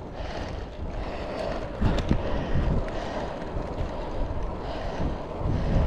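Wind buffeting the camera microphone of a road bike riding along a country lane, a steady rushing rumble that surges louder about two seconds in and again near the end.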